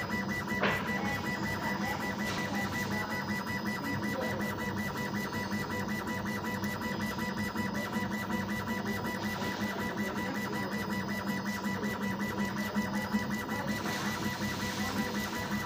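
CO2 laser cutting machine at work, its stepper motors driving the laser head rapidly back and forth over a clear plastic sheet: a steady mechanical whine and buzz, with a couple of clicks in the first second.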